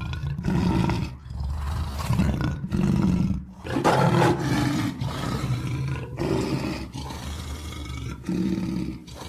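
Lion roaring: a run of deep roars, one after another.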